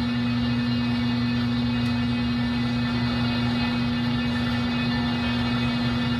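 Floor drill press running with a steady hum while its bit drills into the wall of a round steel tube.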